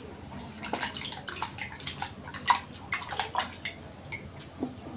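Water splashing and dripping in a plastic cup as fingers are rinsed in it: a quick run of small splashes and drips for about three seconds, then a few softer knocks near the end.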